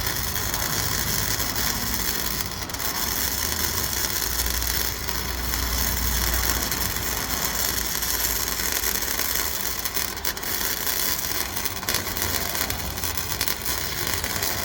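Electric arc welding on a broken steel dumpster hinge: a steady, crackling hiss from the arc as the bead is laid.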